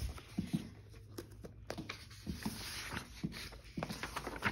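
Pages of a large paperback instructor's guide being turned by hand: a series of short paper flicks and rustles, with a longer sliding rustle about two to three seconds in.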